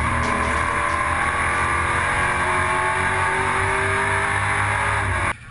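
Race truck engine heard from inside the cockpit, running hard at high, fairly steady revs with a heavy rumble. It cuts off abruptly near the end.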